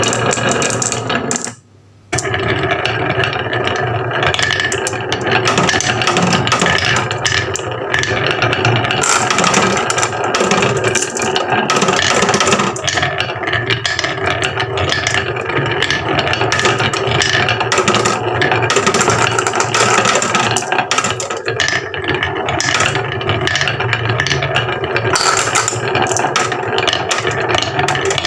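Marbles rolling and clattering down a wooden marble run: a dense, continuous rattle of many small knocks.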